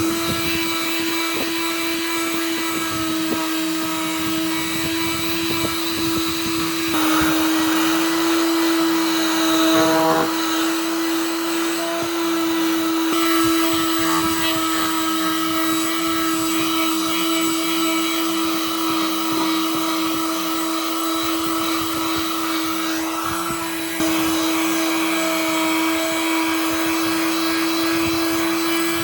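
A woodworking power tool's electric motor running steadily at one constant pitch, with a hiss. The level and texture shift slightly a few times.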